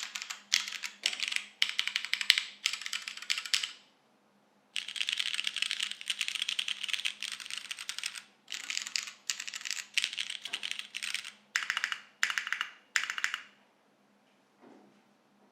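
Typing on a TGR Jane V2 CE mechanical keyboard with tactile MX Brown switches, DCS keycaps and a carbon fibre plate, in quick runs of keystrokes with short pauses. There is a dense stretch of rapid keystrokes from about five to eight seconds in, and the typing stops about two seconds before the end.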